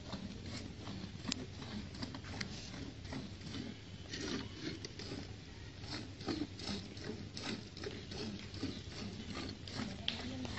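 Milk squirting by hand from a cow's teats into a steel pail, a quick irregular patter of spurts.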